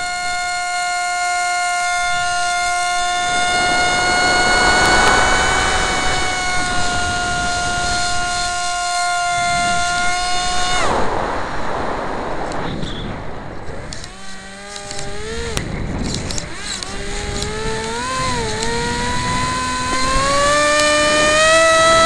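Electric motor and propeller of a Dynam Snow Bird RC plane, heard from the onboard camera, whining at a steady pitch with wind rushing over the airframe. About halfway through the motor cuts out, leaving wind noise. It then comes back on in short bursts, and its pitch climbs steadily near the end as the throttle opens.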